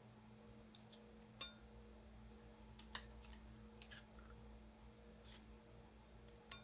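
Near silence: a faint steady hum with a few soft clicks scattered through it, one about every second.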